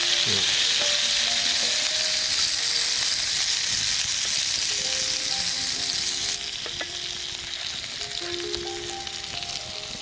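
Salt-and-pepper-seasoned meat sizzling as it fries in oil in a frying pan. The sizzle drops in level about six seconds in. Soft background music with sustained notes plays underneath.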